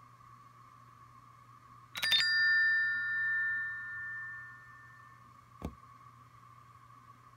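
Apple Watch end-of-session chime for the Breathe app: a single bell-like ding about two seconds in that rings out and fades over about three seconds. A short click follows near the end, over a faint steady hum.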